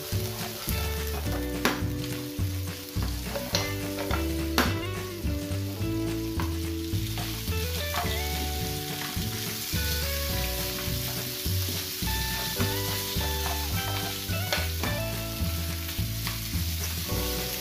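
Squid and mussels sizzling as they sauté with garlic in a nonstick frying pan, turned with tongs that click against the pan now and then, over background music with a pulsing bass.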